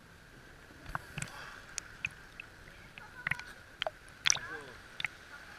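Water sloshing and lapping against a camera held at the sea surface, with scattered short splashes and knocks, the loudest about four seconds in.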